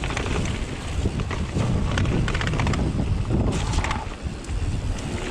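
Strong gusting wind buffeting the microphone, over the clatter and knocks of a Giant Trance 29er mountain bike rolling down a rocky trail with drops.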